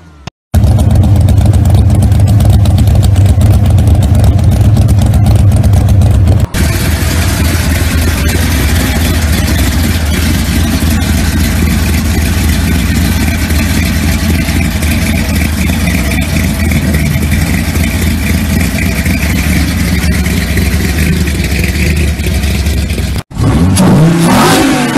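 Loud car engines running steadily, the sound cutting abruptly from one car to the next. The longest stretch is a deep, even engine note from a car with a chrome BDS supercharger through its hood.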